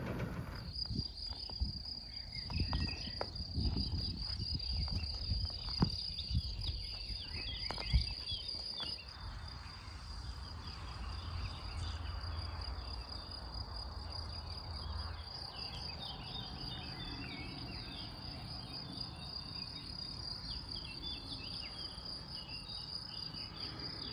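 Crickets chirping steadily in a high, even, pulsing trill. A few sharp knocks sound in the first eight seconds, the sharpest about eight seconds in, over a low rumble.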